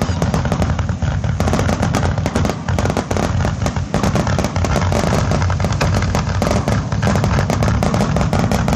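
Aerial fireworks display: a dense, unbroken barrage of shell bursts and crackling, many reports a second over a deep rumble.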